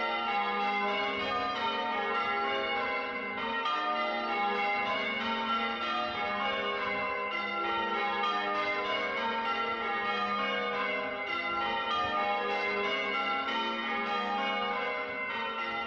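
Church bells change ringing: tower bells struck one after another in a quick, even succession, each strike ringing on over the next.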